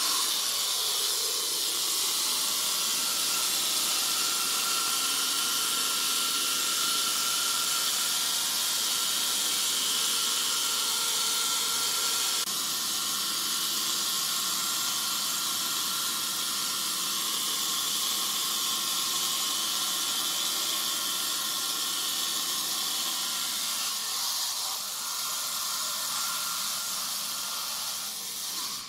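Water-cooled diamond blade of a bridge saw grinding steadily through a granite slab: a steady high hiss with a faint whine.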